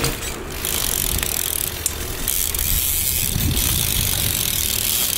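BMX bike's rear hub freewheel ticking steadily as the bike coasts, with a sharp click right at the start.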